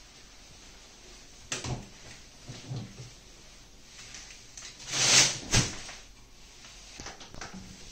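Plastic waste bin's lid knocking open, then a loud rustle as a removed protective gown goes into the bin's plastic liner, and the lid clapping shut just after.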